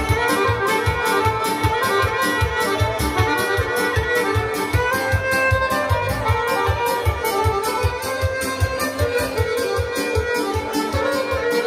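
Live folk band playing through PA loudspeakers: a violin carrying the melody over keyboard accompaniment, with a steady, fast beat.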